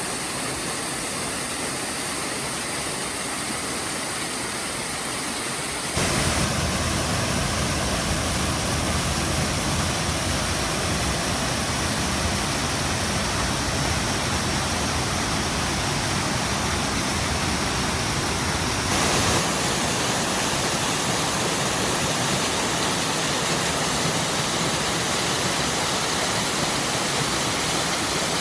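Steady rainfall, an even hiss of falling rain. It shifts suddenly twice, getting fuller and louder about six seconds in and thinner again about two-thirds of the way through.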